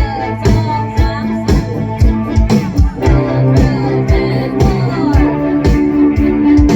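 Live rock band music from a school band: drums keeping a steady beat of about two hits a second under guitar and bass, with a voice singing over it.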